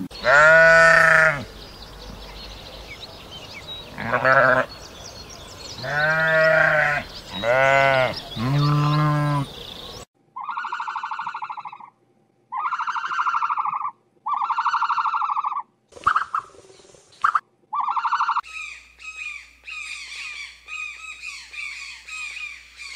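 A sheep bleats five times, each bleat a wavering call about a second long. About ten seconds in, the sound changes to four even, buzzy, pulsing calls. From near the end, a bird gives a rapid run of short, high squawks.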